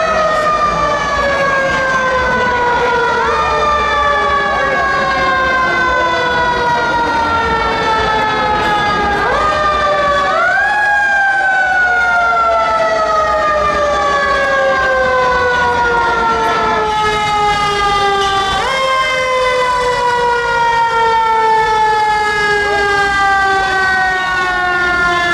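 Fire engine sirens wailing, each rising quickly to a high pitch and then falling slowly over several seconds. They are wound up again about five times, with two sirens overlapping.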